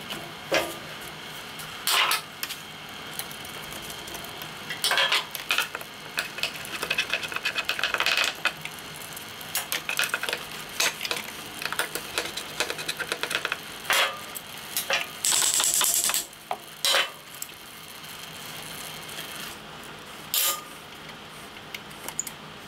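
Hand tools and small metal parts being handled while the air filter and 24 mm Mikuni carburetor come off a small engine: a screwdriver working a hose clamp, with scattered clicks, clinks and knocks, a stretch of fast ticking, and a brief hiss about fifteen seconds in.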